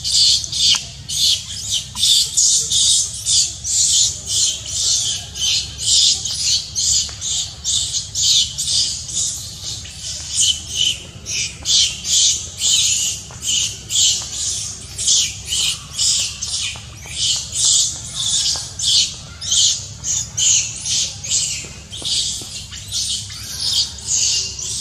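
Baby macaque screaming: shrill calls repeated about twice a second without a break.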